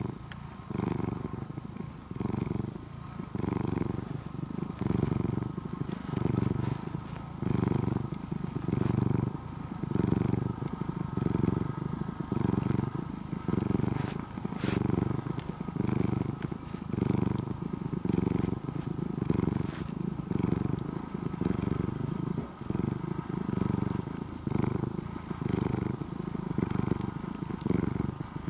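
A ginger-and-white domestic cat purring loudly right at the microphone, a deep, engine-like purr that swells and fades with each breath, about once a second.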